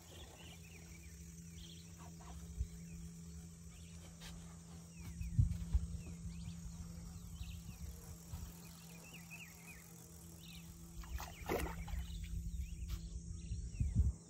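Riverside evening ambience: scattered short bird chirps over a steady high insect buzz and a low steady hum, with two louder bumps, about five seconds in and again near the last third.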